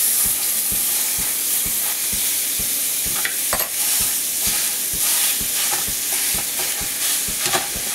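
Ground beef and onions sizzling in a hot oiled stainless-steel skillet, a steady frying hiss. A few light taps and scrapes of a fork on the pan come about three and a half seconds in and again near the end as the block of meat is cut apart.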